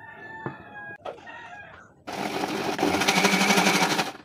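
Electric kitchen mixer grinder switched on about two seconds in, its motor and blades running loud with a rapid buzzing pulse as they chop fresh grass in the steel jar, then cut off abruptly at the end.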